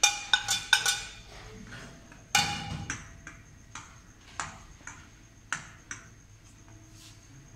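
Metal spoon clicking and scraping against a ceramic plate and a steel saucepan as chocolate is scraped off into the pan: a quick run of clicks, one louder ringing clink about two and a half seconds in, then scattered light clicks.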